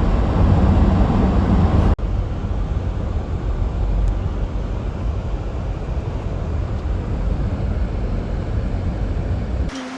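Steady low rumble of a moving vehicle, with a sudden cut and slight drop in level about two seconds in.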